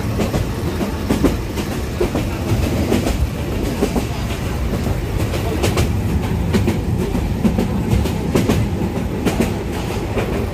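Passenger train running on the track: a steady low rumble with irregular clacks of the wheels over the rails.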